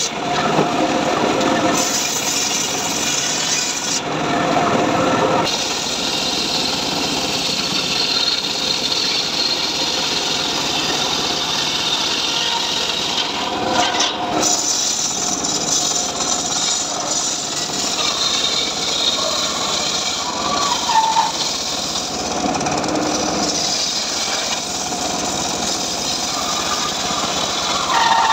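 Homemade circular saw bench ripping trembesi (rain tree) timber: the spinning blade cuts continuously through boards and a bark-edged slab, the tone shifting several times as each piece is fed through.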